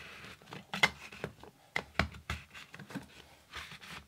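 Irregular clicks and light knocks, with a couple of short scrapes, of a wrench working a shower drain's rubber gasket and plastic tightening collar, pressing the gasket down into the drain.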